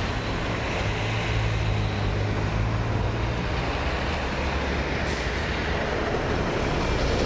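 Steady road-traffic noise from the street, a low even rumble without distinct events.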